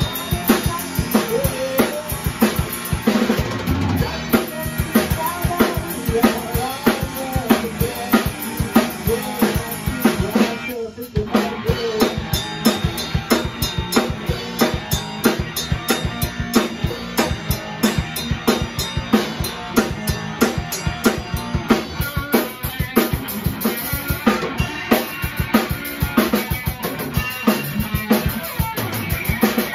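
Acoustic drum kit played in a driving rock beat, bass drum, snare and cymbals struck in a steady fast rhythm, with a band's pitched instruments playing along. The beat breaks off briefly about eleven seconds in, then carries on.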